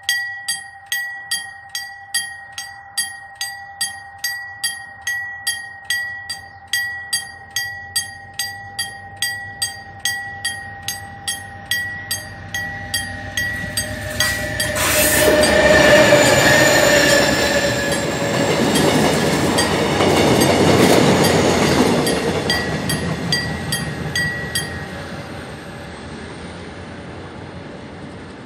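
Level-crossing warning bell dinging about twice a second. About fifteen seconds in a diesel locomotive hauling two passenger cars gives a short horn blast and rumbles over the crossing with wheel and rail noise for about ten seconds. The bell stops near the end as the train clears.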